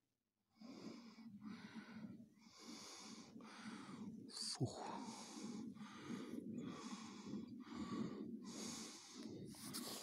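Boots crunching through deep snow at a steady walking pace, about one step every 0.7 seconds, with the walker breathing hard. There is one short sharp snap about halfway through.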